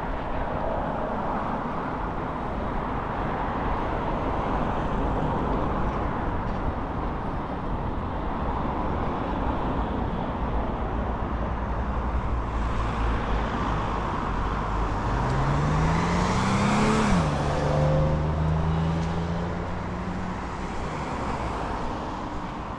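Street traffic noise. About two-thirds of the way through, a motor vehicle passes close: its engine rises in pitch, then drops suddenly and runs on steadily.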